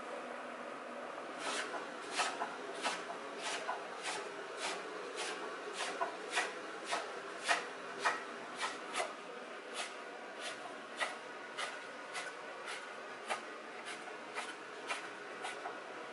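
Chef's knife chopping green onions on a wooden cutting board: steady knocks of the blade on the board about twice a second, starting about a second and a half in.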